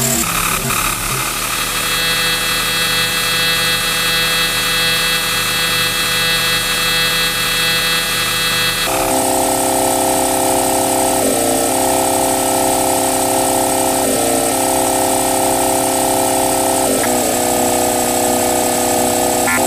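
Circuit-bent Yamaha PSR-11 keyboard putting out steady electronic drone tones. About nine seconds in, the sound switches abruptly to a lower, denser drone that breaks off briefly every few seconds.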